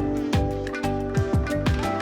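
Background music with plucked notes over a low bass line.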